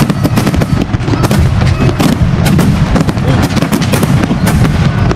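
Large fireworks display: a rapid, continuous stream of bangs and crackles as many shells and comets fire and burst close together, with crowd voices underneath.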